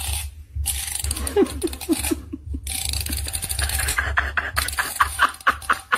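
Finger running along the teeth of a plastic comb, a fast run of ratcheting clicks, repeated in bursts.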